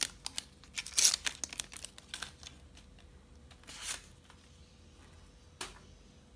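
Light plastic clicks and crinkly rustling from a white Apple MacBook power adapter being handled: a sharp click at the start as its plug piece comes off, a run of small clicks and rustles over the next two seconds, a short rustle near four seconds and one more click near the end.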